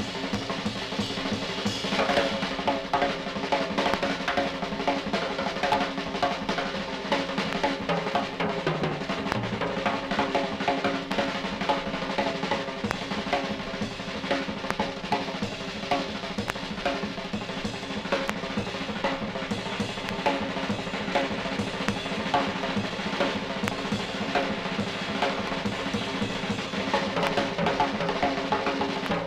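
Live instrumental with the drum kit to the fore, playing busy snare rolls and bass-drum strokes over Hammond organ tones held steady underneath.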